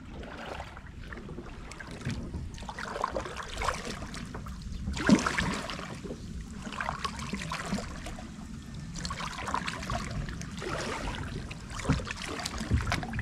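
Double-bladed kayak paddle dipping and splashing in the water, a stroke every second or two with water trickling off the blades between strokes; the loudest splash comes about five seconds in.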